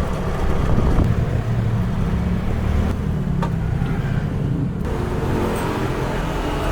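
A steady low rumble of vehicle noise.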